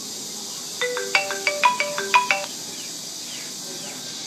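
Smartphone ringing with a marimba-style ringtone, a quick phrase of struck, mallet-like notes about a second in, over a steady hiss. The call rings through even though the phone's screen stays dark and unresponsive.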